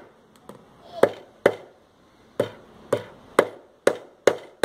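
Claw hammer driving nails into a wooden board: a couple of light tapping blows, then about seven firm strikes roughly half a second apart.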